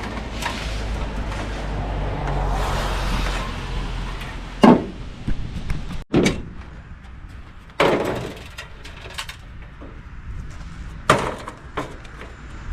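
A steady rumble with wind-like hiss, then five separate sharp knocks, each a second or more apart.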